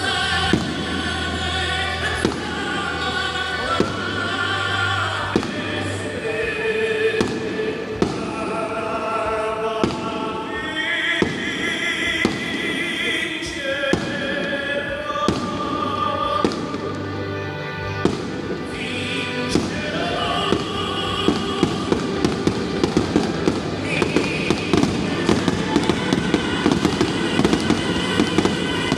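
Fireworks bursting against music with a singing voice. The bangs are scattered at first, then come in a rapid, dense string over the last several seconds.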